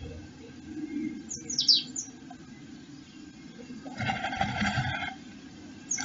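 A blue tit in a nestbox: a quick run of high, falling chirps, then about four seconds in a second of rustling and wing-fluttering as it presses and shapes the hair-and-moss nest cup. More falling chirps and rustling start right at the end.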